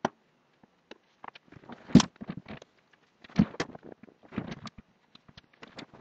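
Handling noise on a workbench: irregular clicks, taps and rustles of small parts and thin wires being moved about. The loudest knock comes about two seconds in.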